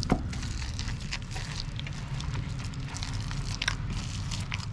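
Bare hands squeezing and kneading wet palmyra palm fruit pulp and fibres in a steel bowl: irregular wet squelches and sticky smacks, over a steady low hum. The pulp is being worked free of the fibres without added water so that it comes out thick.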